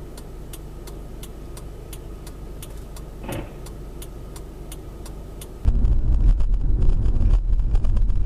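Car-cabin hum from a dashcam with a regular ticking, about three ticks a second. About two-thirds of the way in it switches suddenly to a much louder low rumble of road and wind noise from a car driving.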